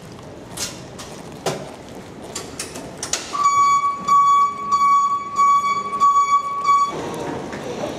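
Electric airport passenger buggy's warning beeper: a steady, high electronic tone that pulses slightly in loudness, starting about three seconds in and lasting about three and a half seconds. Before it come a few sharp clicks.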